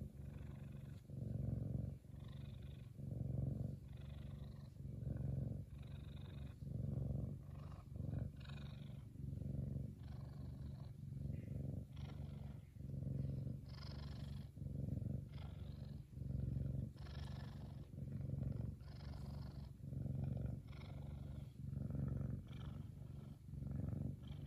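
F2 Savannah cat purring loudly and steadily, the purr swelling and easing about once a second with its breathing: a contented purr while being scratched.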